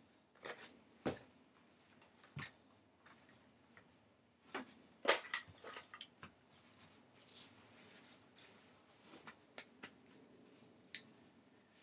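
Scattered faint rustles and light knocks of things being handled, a dozen or so short separate sounds with the loudest cluster about five seconds in.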